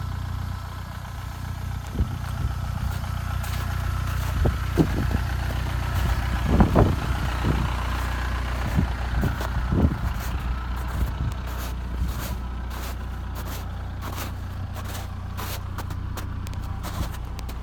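VW 1.9 TDI ALH diesel engine running, a steady low engine note with a faint higher whine in the first half and a few short knocks. The turbo bearing is worn and letting oil by.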